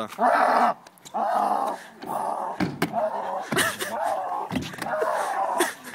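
A person's voice letting out loud, wordless cries, about six in a row.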